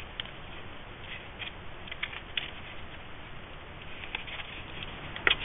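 Light rustling and small crinkles of thin designer series paper being folded and pressed between the fingers, with a sharper crinkle near the end.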